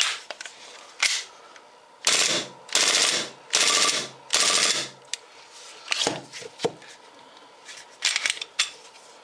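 WE G18C gas-blowback airsoft pistol firing on full auto: four short bursts of about half a second each, a dense rattle of gas and slide blowback. Two more brief clusters of sharp clacks follow later.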